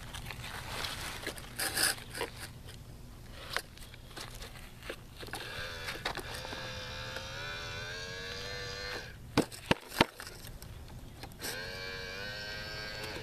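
Tonka Mighty Motorized Garbage Truck's front-loader arm motor and gears whining as the forks lift a loaded toy dumpster, running for a few seconds. Then come a few sharp plastic clacks, and the whine starts again near the end.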